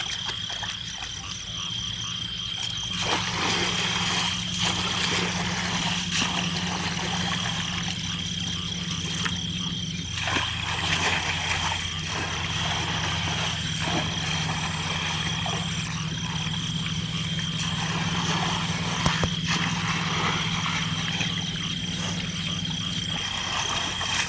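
Water sloshing and splashing in short bursts as hands and bamboo plunge baskets work the shallow water of a flooded grassy field. Under it runs a steady low hum that fades near the end, and a constant thin high-pitched whine.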